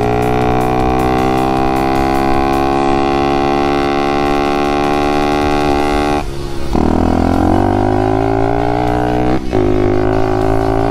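110cc pit bike's single-cylinder four-stroke engine, breathing through a racing carburettor with an open velocity stack, pulling hard under acceleration with its pitch climbing steadily. It upshifts about six seconds in and again about a second before the end, each shift a brief drop in sound before the pitch climbs again.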